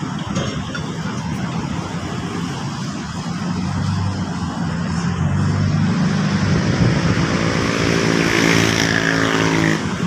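A motor vehicle's engine running over a steady outdoor rush, growing louder from about halfway through as it comes close.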